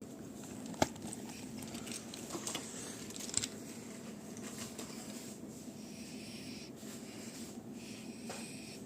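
Quiet room tone with a steady low hum and a few scattered clicks, the sharpest about a second in.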